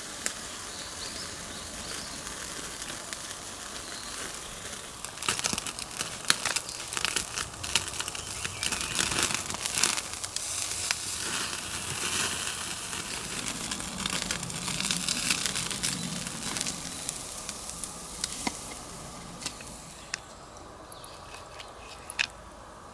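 Dry tinder and kindling crackling and crumpling in quick, irregular clicks over a hiss. It grows busier a few seconds in and thins out near the end.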